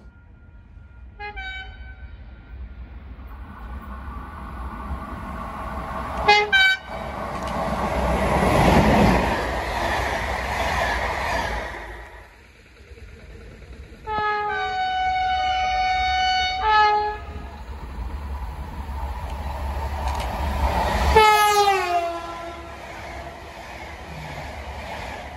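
Train horns sounding several times over the rumble of a passing train: a short blast, then a long chord-like blast, then a final blast that falls in pitch as a CP Alfa Pendular electric tilting train runs past close by.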